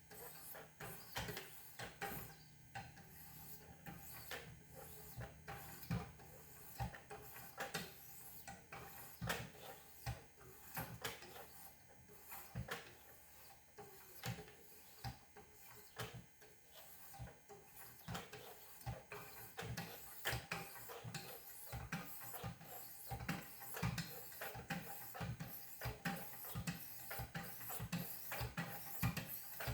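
Wicked Edge guided sharpener's 1500-grit stones stroked up and down along a kitchen knife's edge: a run of light scraping strokes and ticks, coming faster and more regularly in the second half.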